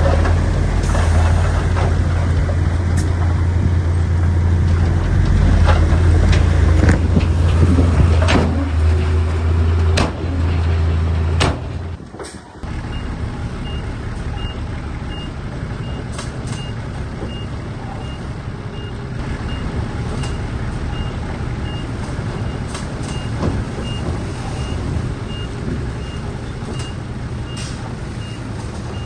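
A heavy diesel earthmoving machine working hard with a deep, loud engine drone and several sharp metallic knocks. About twelve seconds in it gives way to a quieter idling truck engine with a steady reverse alarm beeping: a dump truck backing up.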